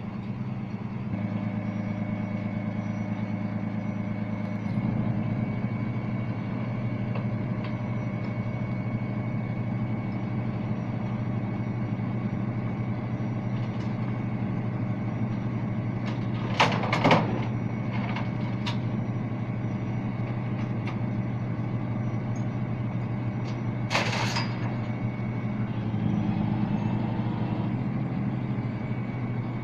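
Tow truck engine running steadily while the car is winched onto it, its tone shifting a few times, with a few sharp metallic clanks around the middle and one more later.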